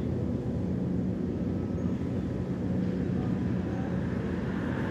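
Boat lift machinery running with a steady low mechanical hum and a few constant tones above it.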